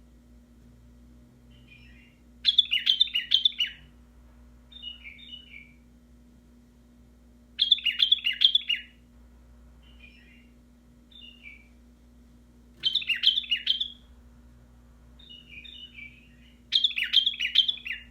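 White-eared bulbul singing: four loud phrases of quick notes every four to five seconds, each about a second long, with softer short calls in between.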